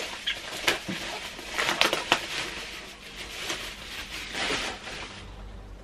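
Plastic bubble wrap crinkling and rustling as a boxed figure is pulled out of it, with a cluster of sharp crackles about two seconds in.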